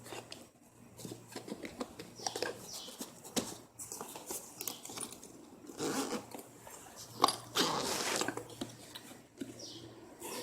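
Packaging being opened and handled by hand: paper rustling and crinkling, with small clicks and taps. The rustling grows louder about six seconds in and again near eight seconds.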